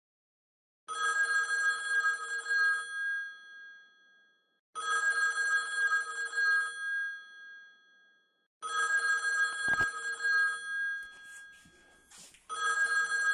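Landline telephone ringing with a steady electronic ring. It gives three rings about four seconds apart, and a fourth begins near the end.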